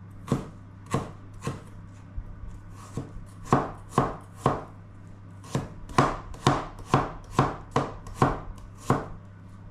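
Kitchen knife chopping garlic and ginger on a cutting board: sharp, even knocks about two a second, with a brief pause about two seconds in.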